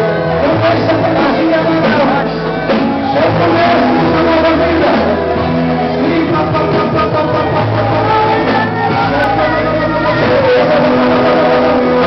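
Church worship music: singing over a band, with long held bass notes and some shouting over it.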